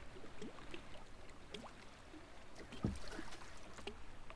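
Small waves lapping against the hull of a bass boat, with scattered light ticks and a single low thump about three seconds in.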